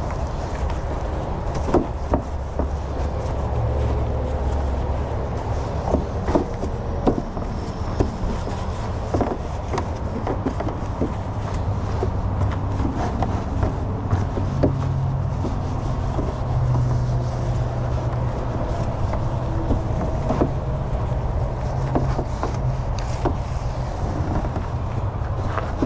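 A steady low engine-like rumble runs throughout, under scattered light taps and knocks from the plastic fountain molds being handled and sponged with oil.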